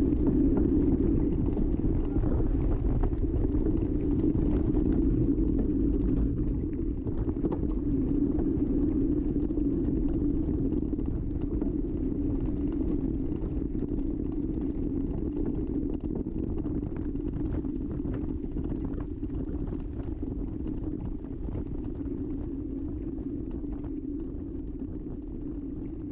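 Steady wind buffeting and rumble on an action camera riding on a mountain bike over a bumpy dirt track, with scattered small rattles and clicks from the bike; it slowly gets quieter.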